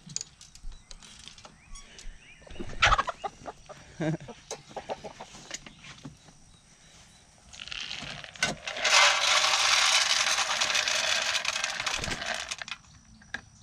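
Feed pellets poured from a plastic scoop into a metal trough feeder, a loud, steady rattle lasting about five seconds in the second half. Before it there are scattered knocks and the short clucks of hens.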